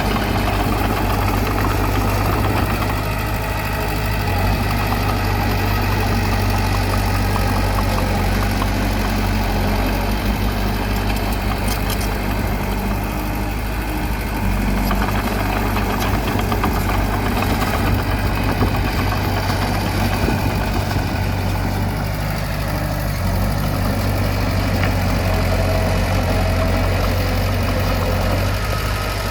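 Heavy machine's engine running steadily, with a strong low hum and little change in speed.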